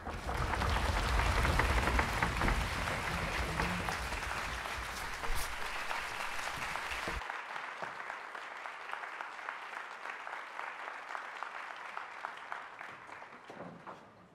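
Audience applauding a conductor's entrance before an orchestral performance: a dense spread of clapping, loudest for the first seven seconds, dropping abruptly about seven seconds in and then thinning and dying away.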